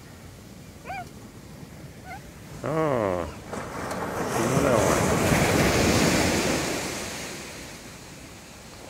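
An ocean wave breaking on a sandy beach and washing up the shore, swelling to a loud crash about four to six seconds in and then fading away.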